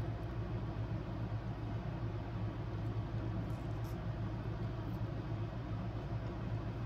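A steady low hum, with a few faint crunches of KitKat wafer being bitten and chewed.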